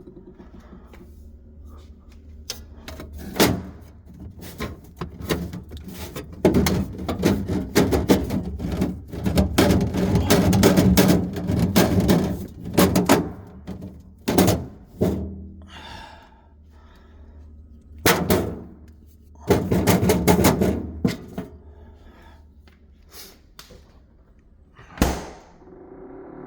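Irregular knocks, clunks and rattles, thickest through the middle and again about two-thirds of the way in, with one loud knock near the end, over a faint steady low hum.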